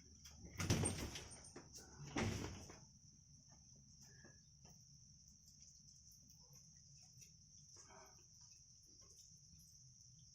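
Insects trilling steadily in a high, continuous drone, with two short, louder noises about a second and two seconds in.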